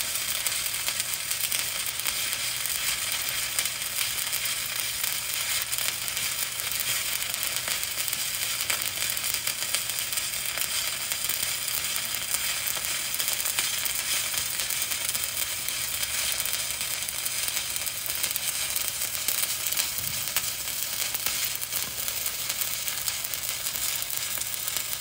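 Stick (shielded metal arc) welding arc from a 7018 electrode running a vertical-up bead on steel plate: a steady, unbroken sizzle and crackle.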